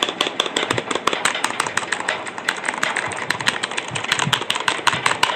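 Keys of a Zebronics mechanical gaming keyboard being pressed in quick succession: a fast, steady run of sharp clacks, several a second, with no pause.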